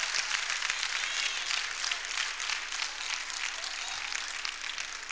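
Congregation applauding, many hands clapping at once.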